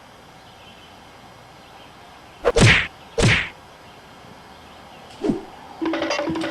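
Fight sound effects: two loud whooshing whacks close together, then a duller thud a couple of seconds later. Near the end, music starts with a steady wood-block beat.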